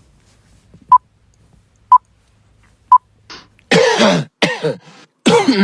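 Four short electronic beeps at one pitch, one a second, like a countdown timer. After them, from about three and a half seconds in, come short bursts of a person's voice, cough-like, falling in pitch.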